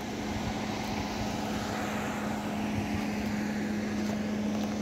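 Steady motor hum, a constant low drone with a fainter tone above it, over even background noise.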